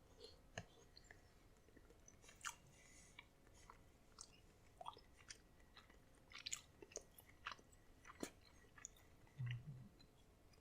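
Faint close-up chewing of a mouthful of chicken in chili sauce: soft, irregular mouth clicks and smacks, with a brief low hum near the end.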